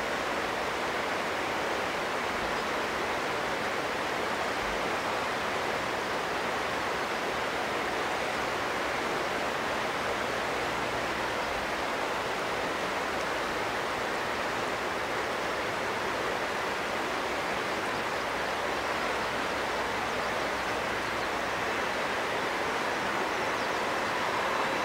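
Jet engines of a Boeing 767-300 at taxi power, a steady rushing noise that grows slightly louder near the end as the aircraft turns to line up on the runway.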